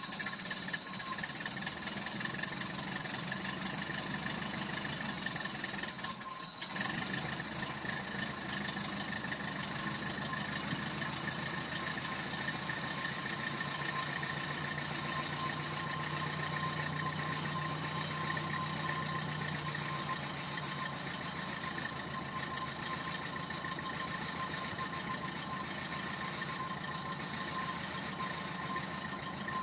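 1930 Ford Model A's four-cylinder flathead engine idling steadily just after a cold start in 7 °F weather, the engine still cold. It falters briefly about six seconds in, then settles back into an even idle.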